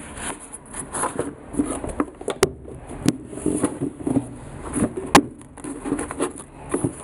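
Knit sneakers being handled on cardboard shoe boxes: irregular rustling and scraping, with three sharp clicks scattered through.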